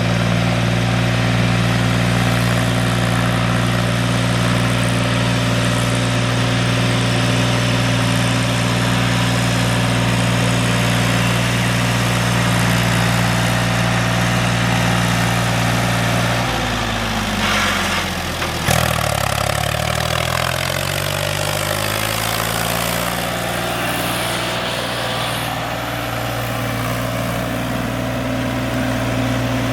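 Heavy diesel engine idling steadily. About two-thirds of the way through its speed dips and then climbs back to a steady idle, with a single sharp click near the dip.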